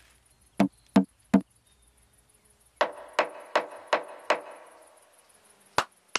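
Knocking on wood, traded back and forth like a woodpecker's drumming. First come three knocks, then five evenly spaced knocks with a short echo, then lighter, sharper knocks near the end.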